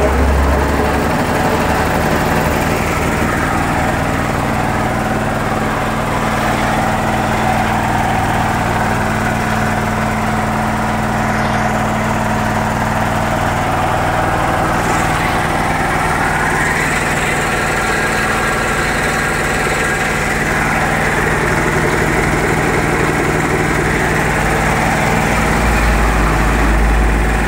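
Puma 3 HP belt-driven twin-cylinder piston air compressor running on test. Its 2.2 kW three-phase electric motor and pump give a steady hum with a fast low pulsing as it pumps up the tank, and a louder low rumble rises near the end.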